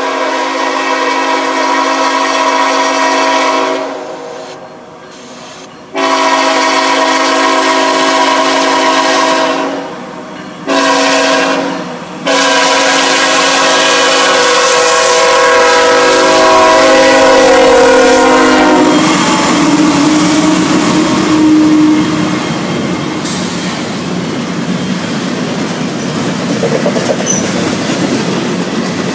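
CSX freight locomotive's air horn, several tones sounding at once, blowing the grade-crossing signal: two long blasts, a short one, then a final long one. About two-thirds of the way in the horn stops, and the double-stack intermodal cars roll past with steady wheel-and-rail clatter.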